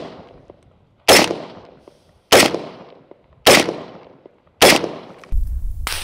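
M16 rifle firing unsuppressed 5.56 mm rounds in semi-automatic, heard close up: four sharp shots about 1.2 seconds apart, each echoing away. Near the end a low rumble sets in and one more sharp crack is heard.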